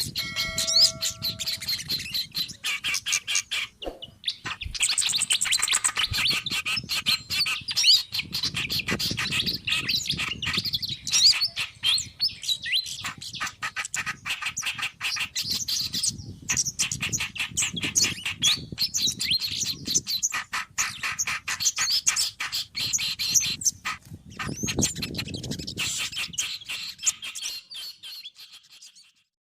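Small songbirds chattering and chirping rapidly, many quick notes overlapping in a dense, busy stream, with a brief lull about four seconds in. It is a bird-lure (pikat) call track that mixes kerak basi, flycatcher, sogon and kemade calls to draw in wild birds.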